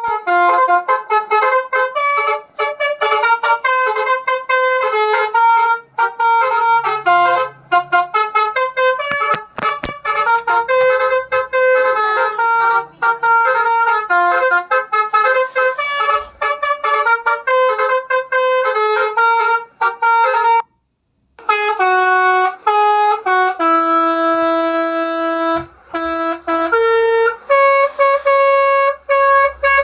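Telolet multi-tone musical horn playing a fast melody of short horn notes. After a brief break of silence about two-thirds of the way through, it goes on with longer held notes.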